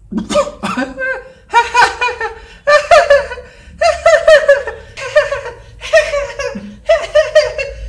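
A person laughing loudly in a string of high-pitched peals, about eight in all, each under a second long.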